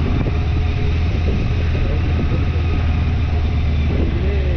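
Steady low rumble of a motorcycle on the move, engine and wind noise running evenly at a constant loudness.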